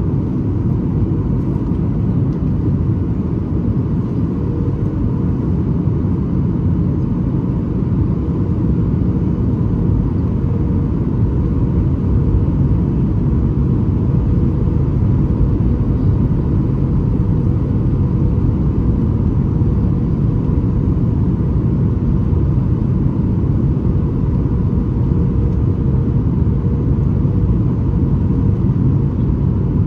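Steady cabin noise inside a Boeing 737 MAX 8 in flight: a low rumble of airflow and its CFM LEAP-1B engines, with a faint steady hum.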